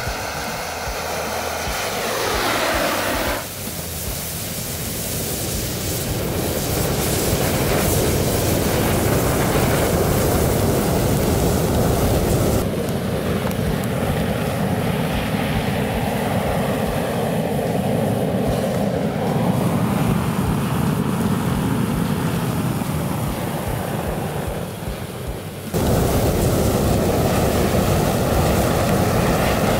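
A large bundle of sparklers burning with a loud, steady rushing hiss. The level and tone change abruptly a few times.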